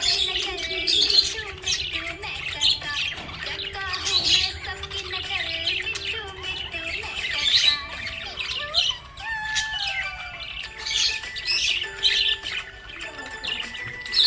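Small pet parrots chirping and squawking in quick, overlapping calls, with lower warbling and gliding notes among them.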